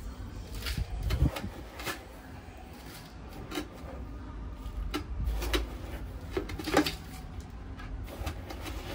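Irregular light knocks, taps and rustles from handling a plant pot and a peat-and-perlite potting mix while repotting a Venus flytrap, with a low handling rumble underneath.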